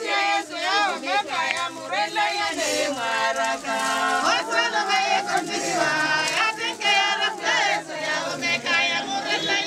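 A group of mourners' voices raised together in a high, wavering lament.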